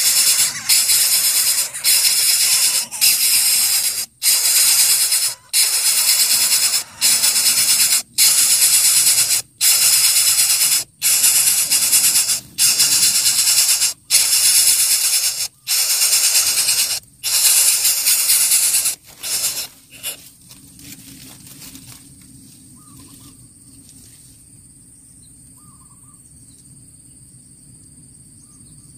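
Coucal chick hissing loudly and repeatedly, one long hiss about every second and a half, stopping about twenty seconds in.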